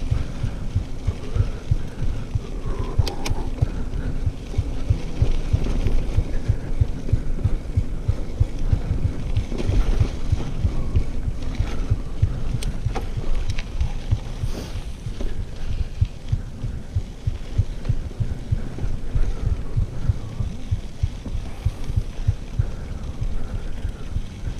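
Mountain bike riding along a dry dirt singletrack: a continuous low rumble and rapid uneven thudding from wind buffeting the microphone and the bike jolting over the trail, with a couple of sharp clicks.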